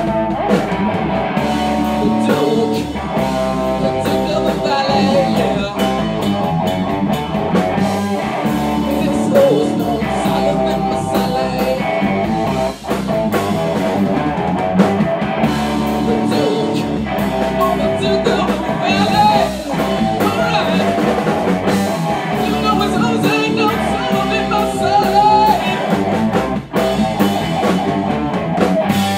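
Rock power trio playing live: electric guitar over bass guitar and drum kit, with steady drum strokes.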